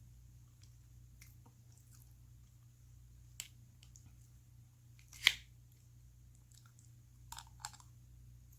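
Close-miked eating sounds of Spam ham: faint chewing and a few sharp clicks and taps. The loudest click comes about halfway through, and two quick ones follow near the end.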